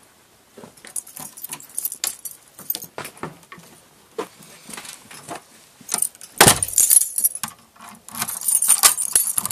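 A bunch of keys jangling amid handling clicks and knocks, with one heavy thud a little past halfway; the jingling is densest near the end.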